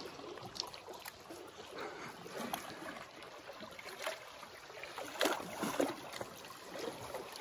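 Small waves lapping against shoreline rocks in a soft, irregular wash, with a few slightly louder splashes.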